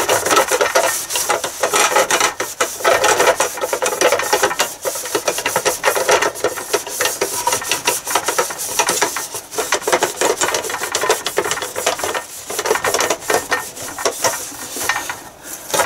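Kitchen roll rubbing back and forth over the ridged non-stick sandwich plates of a Tower 3-in-1 snack maker, wiping off excess seasoning oil. It is a scratchy, papery rubbing that comes in strokes, with a few short breaks.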